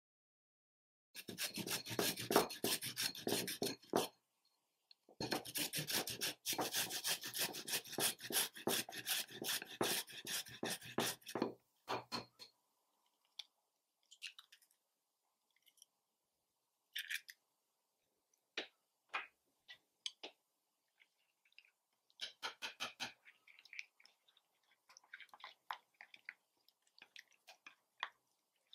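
Raw potato being grated in two long runs of rapid rasping strokes in the first dozen seconds. After that come scattered taps, clicks and short scrapes of chopsticks mixing the grated potato with egg in a ceramic bowl.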